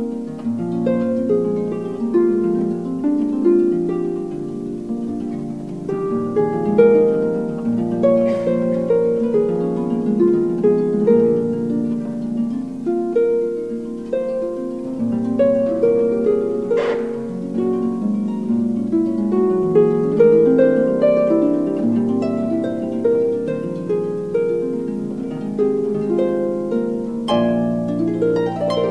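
Concert harp playing a flowing passage of many plucked notes that ring on into one another.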